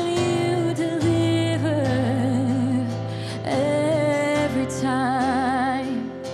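A woman singing a worship song, with vibrato on her held notes, accompanied by acoustic guitar.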